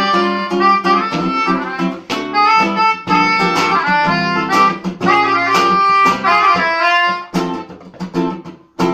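Nylon-string classical guitar and melodica playing a duet: the guitar plucks chords and runs while the melodica plays a reedy melody over it. A dip near the end, then a loud chord struck right at the close.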